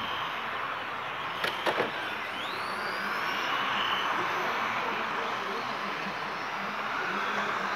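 Radio-controlled model trucks' motors whining steadily as they race around the track, with a rising whine as one speeds up. Three sharp knocks come in quick succession about a second and a half in.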